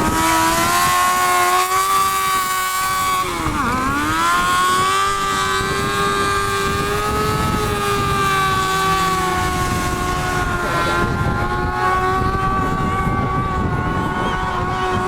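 Sport-bike motorcycle engine held at high revs during stunt riding. It drops sharply and climbs back about four seconds in, then holds a steady high pitch.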